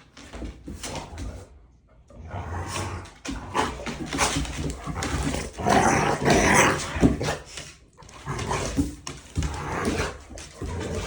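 A dog making sounds as it plays, in irregular bursts that are busiest through the middle stretch.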